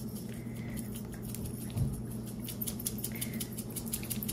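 Za'atar spice blend pattering onto sliced vegetables as it is sprinkled, a quick run of fine ticks, with a low thump about two seconds in. A steady low hum sits under it.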